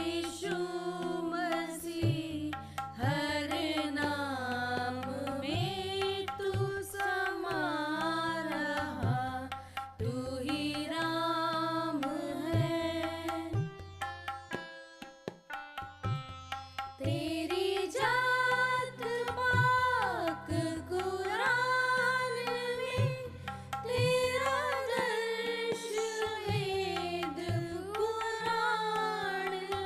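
Children singing a devotional prayer song over a backing of low held notes and steady drum beats. The voices drop out for a few seconds about halfway, leaving only faint beats, then return.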